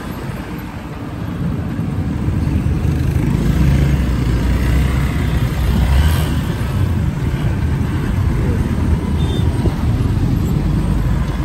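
Busy city road traffic heard while riding in it: a steady low rumble of engines and tyres from buses, cars and motorcycles close by, swelling a little around the middle.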